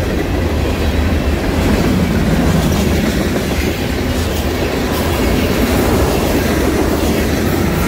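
Freight train cars (tank cars, a covered hopper, flatcars) rolling past at close range: steel wheels running on the rails in a steady low rumble.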